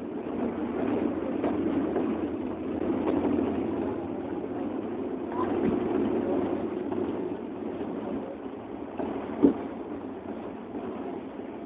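Rainstorm on a city avenue with vehicles passing on the wet road: a steady noise that swells and eases every few seconds, with one sharp knock about nine and a half seconds in.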